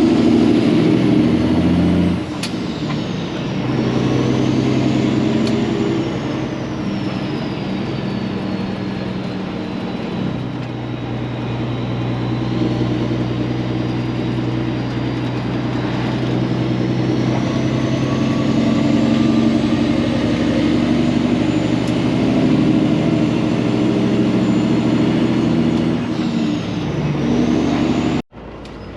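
Diesel engine of a Peterbilt 379 semi truck running under way, its note stepping up and down in pitch as it works through the gears, with a faint high turbo whistle that rises and falls. The sound cuts off abruptly near the end.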